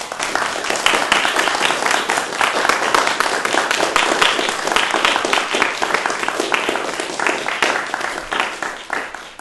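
Audience applauding a stage performance at the close of the play: many hands clapping in a dense, steady burst that stops abruptly at the end.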